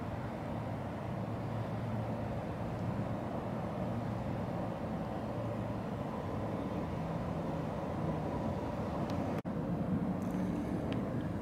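Steady low rumble of motor-vehicle traffic or engine noise. It drops out for an instant about nine seconds in, then carries on.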